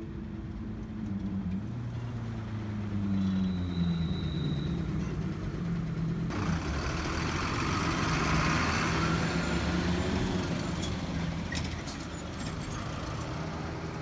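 Engine of a Rokko mountain route bus running close by, its note dropping in pitch a few seconds in. About six seconds in, a broad hiss joins the engine, and a few sharp clicks come near the end.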